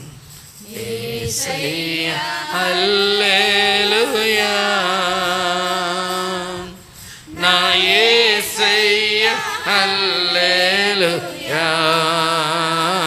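Group of women singing a Telugu Christian worship song in long held, wavering notes, with a short break about seven seconds in.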